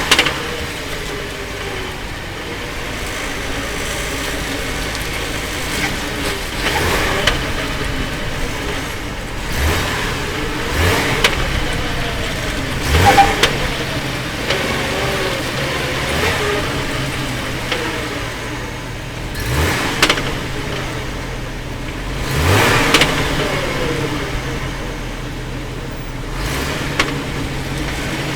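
Hummer H3 with its engine running, giving several sharp clunks at irregular intervals, a few seconds apart, over the steady engine hum.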